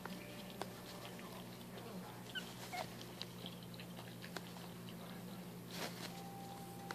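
Month-old Maltese puppies eating soft puppy food from a plate: many small wet chewing and lapping clicks, with a few tiny high squeaks near the middle. About six seconds in there is one short, louder noisy burst, over a steady low hum.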